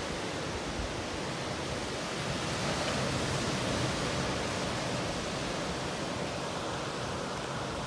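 Steady rush of ocean surf breaking on a beach and reef below, swelling a little about three seconds in.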